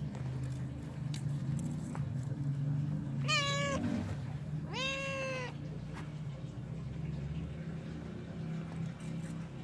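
A cat meowing twice, two short calls about a second apart, the second a little longer, over a steady low hum.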